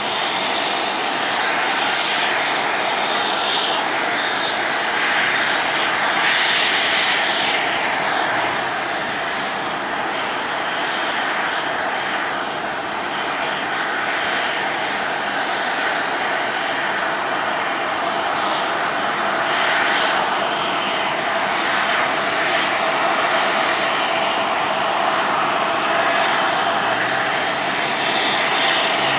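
Airliner engines running: a steady, loud rushing noise that holds level without a clear rise or fall.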